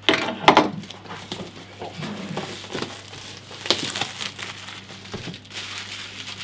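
Clear plastic bag crinkling and cardboard rustling as a network switch in its plastic wrapping is slid out of its box. The sound comes in irregular rustles, loudest just after the start and again near the middle.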